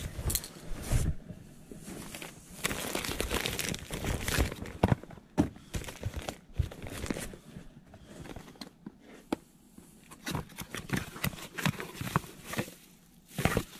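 Rustling and crinkling of fabric, a nylon bag, a cardboard box and plastic wrapping being handled and opened, in irregular bursts with sharp little clicks.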